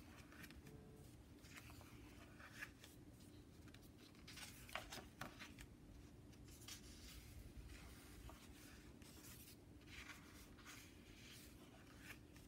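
Faint rustling of paper as the sheets of a sticker book are turned and smoothed flat by hand, in short scattered brushes over a faint steady hum.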